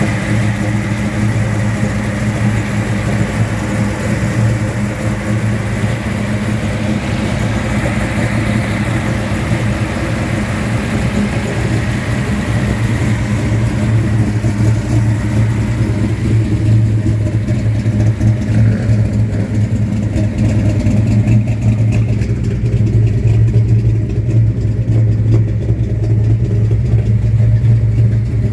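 An engine idling steadily: a loud, even, low hum that neither revs up nor dies away.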